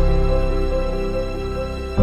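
Background music: held notes with a slowly moving melody over a low bass.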